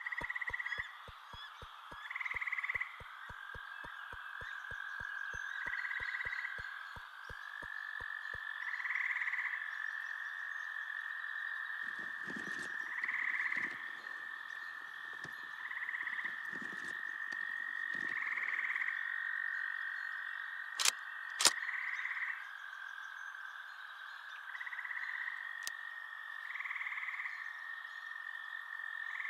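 Eerie sound-designed film ambience: a steady high tone with a pulsing note repeating about every second and a half. Rapid even ticking, about three a second, runs for the first eight seconds, low rumbles come in the middle, and two sharp cracks sound about two-thirds of the way through.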